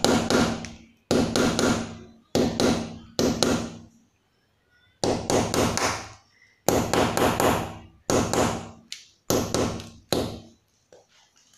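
A hammer tapping a nail held against a plastered masonry wall, in quick bursts of three to five sharp strikes with short pauses between, each strike ringing briefly. The nail is being knocked in at a pencil-marked spot to start the hole for a dynabolt anchor.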